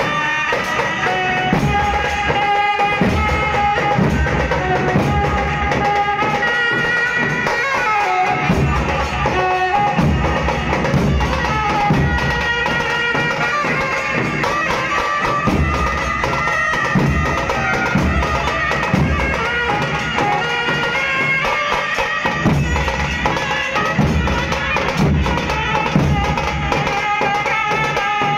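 Street brass band playing: a trumpet and reed horns carry a melody over a steady, loud beat from large rope-tensioned dhol drums and a small stick-beaten drum.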